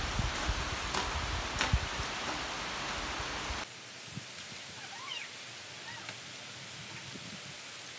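Steady rain with dull thuds of a long-handled digging tool striking wet soil. About three and a half seconds in, the sound drops abruptly to quieter rain. A short animal call rises and falls near the middle.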